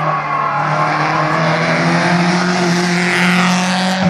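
Race car engine under hard acceleration as the car climbs the hill toward the spectators, one loud, continuous engine note rising slowly in pitch.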